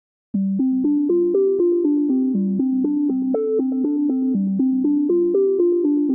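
Background music: a quick, repeating pattern of synthesizer or electric-piano notes starting a moment in.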